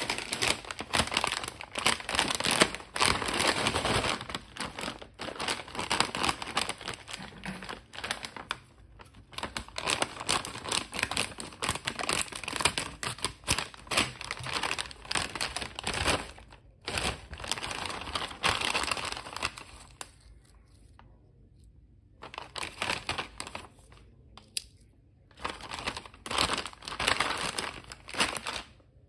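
Plastic crisp and snack packets crinkling and crackling as a hand picks them up and moves them about, in irregular bursts, with a quieter stretch about two-thirds of the way through.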